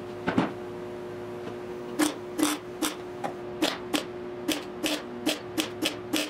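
MIG welder laying a run of short tack welds on the steel of a car's windshield frame: brief sharp bursts, a couple early on, then a quick series of about ten at two to three a second, each pulling down the pitch of the welder's steady hum.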